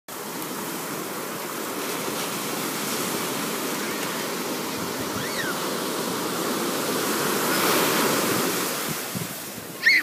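Ocean surf washing in, a steady rushing of waves that swells as a wave breaks a little before the end. Just before the end comes a brief, loud, high-pitched shout from a child.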